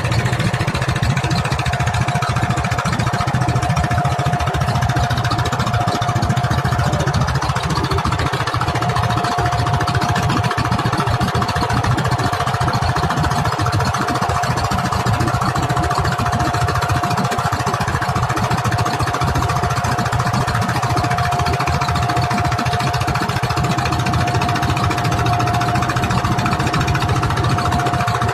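Fishing boat's engine running steadily, with a steady whining tone above its low running note.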